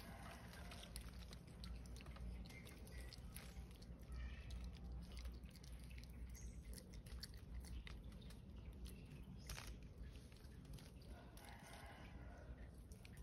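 Near silence: a faint steady low rumble with scattered soft clicks.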